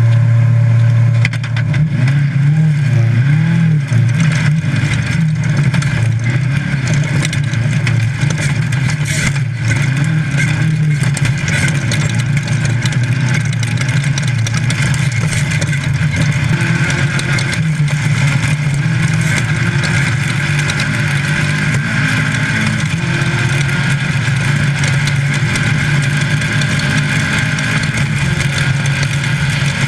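VW Baja Bug race car's engine running hard under load, heard from inside the car: the engine note wavers over the first few seconds, then holds fairly steady, with road noise and scattered knocks and rattles over the off-road course.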